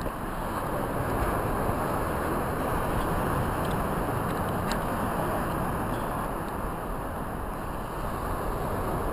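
Wind buffeting the microphone, a steady rushing noise with uneven low rumble, over surf washing onto a sandy beach.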